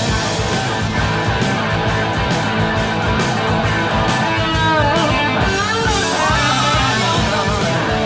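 Background rock music with guitar, with gliding, bending notes about halfway through.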